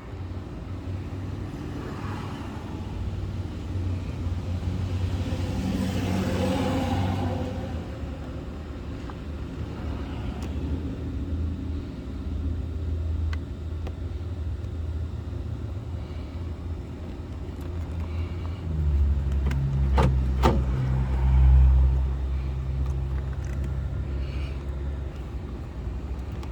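Low, steady vehicle rumble that swells and fades again about six seconds in, with a few sharp clicks about twenty seconds in.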